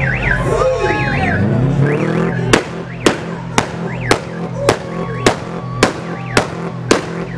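Background music: a melodic passage at first, then, from about two and a half seconds in, a steady drum beat of about two hits a second.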